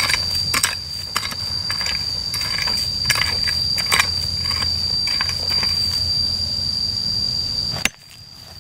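A mattock chopping and scraping into dry, stony earth, with gritty strikes about twice a second. A steady high whine runs underneath. The sound cuts off suddenly near the end.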